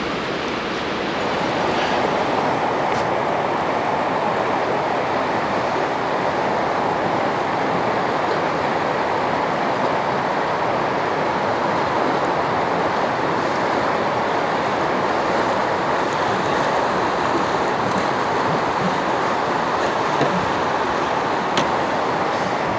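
Fast river water rushing steadily over rocks and riffles, a little louder from about two seconds in.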